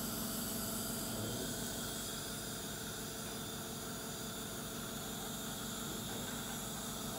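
Steady hissing background noise with a faint low hum, unchanging throughout.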